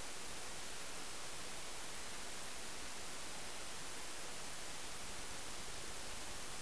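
Steady, even hiss of recording noise with no other sound.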